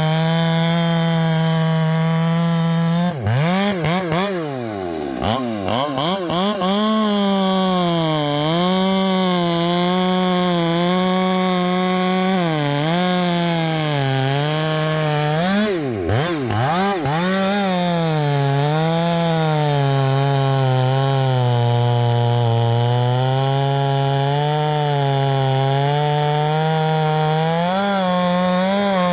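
Ported Husqvarna 564 XP two-stroke chainsaw with a 32-inch bar running at full throttle and cutting wood. Its engine pitch dips and wavers sharply twice, then pulls down steadily under load in the cut and climbs back up near the end.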